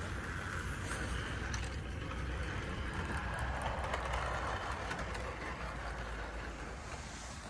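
OO-gauge model train, the LMS Crab Class locomotive hauling coaches, running along the track: a steady whirr of the small electric motor and the wheels on the rails, growing louder around the middle as the coaches pass close by.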